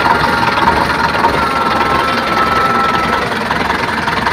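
Sonalika DI-60 RX tractor's diesel engine idling steadily.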